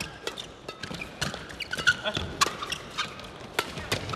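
Fast men's doubles badminton rally: rackets striking the shuttlecock in quick, uneven succession, with shoes squeaking on the court.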